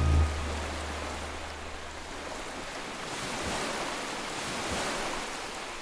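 A song's backing music cuts off just after the start, leaving a steady wash of ocean-wave noise that swells a little in the middle before fading.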